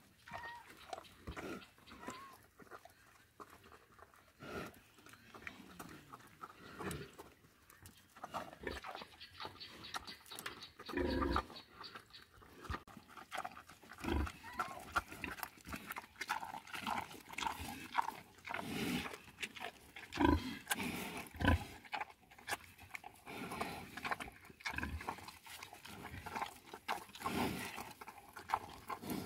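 A pig eating cassava peels off the ground: irregular crunching and chewing, with snuffling as it noses through the dirt.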